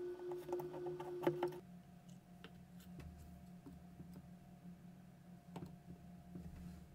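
Small metallic clicks and ticks as tweezers and fingertips handle the small steel parts of a disassembled Hasselblad 2000FC camera's shutter and winding mechanism. There is one sharper click about a second in, then scattered faint ticks over a low steady hum.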